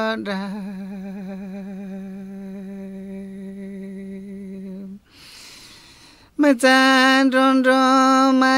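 A man singing an icaro, a sacred healing chant, unaccompanied. He holds one long wavering note that fades over about five seconds, breaks off into a short quiet gap with breath noise, then comes back in loudly on a slightly higher held note.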